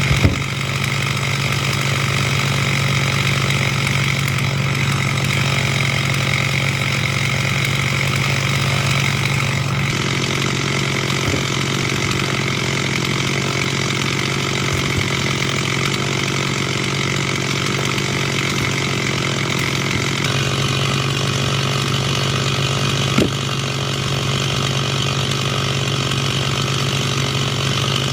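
Gas chainsaw running steadily at high speed while cutting firewood, with a brief knock about three-quarters of the way through.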